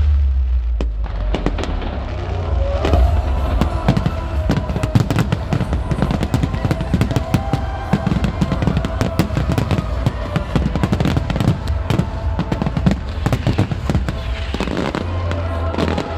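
Fireworks display at full intensity: shells bursting in rapid, overlapping bangs and crackles, many a second, densest through the middle. Music from the show's soundtrack plays underneath.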